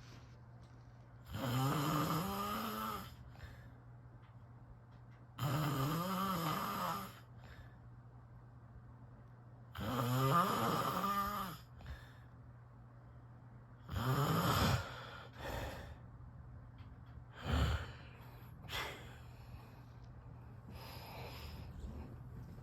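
A person snoring in sleep: four loud snores about every four seconds, each about a second and a half long, followed by a few shorter, weaker snorts and breaths.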